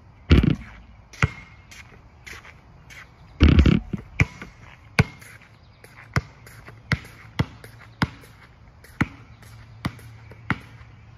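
A basketball striking an outdoor asphalt court. There are two louder, longer impacts, one near the start and one about three seconds in, then a string of sharp single bounces every half second to a second.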